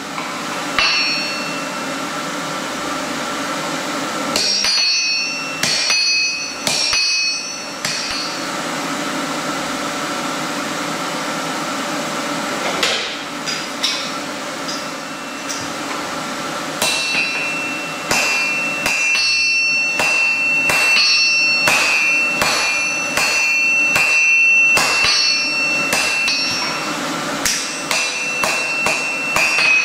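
A blacksmith's hammer strikes red-hot steel on an anvil as the spike of a tomahawk is drawn out. A few scattered blows come in the first several seconds over a steady hum; from a little past halfway the blows come in a steady run of about two a second, and the anvil rings with a high tone.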